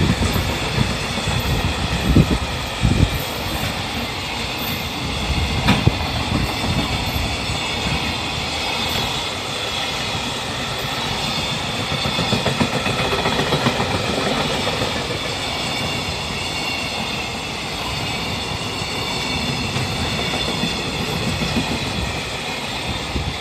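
A long freight train rolling past at steady speed, a continuous rumble of wagon wheels with a clickety-clack over the rail joints and a few sharp clicks.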